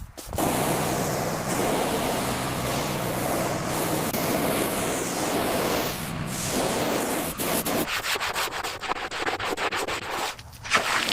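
Abrasive rubbing on a hard surface, steady for the first several seconds. It turns into fast repeated back-and-forth strokes in the last few seconds.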